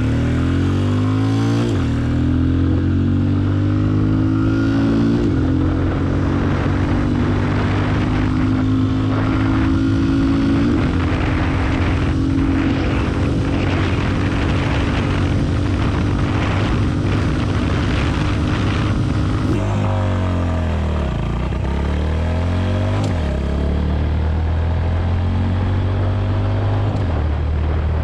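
Benelli Imperiale 400's 374cc air-cooled single-cylinder engine pulling hard through the gears on a full-throttle acceleration run. Its note climbs in each gear and drops at each upshift, with the rush of wind over it. About two-thirds of the way through it gives way to the Honda CB350's 348cc air-cooled single on the same kind of run, which also rises and drops between gear changes.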